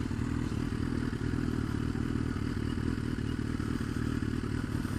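2015 Suzuki GSX-R1000's inline-four engine running steadily at a low, even speed, with no revving.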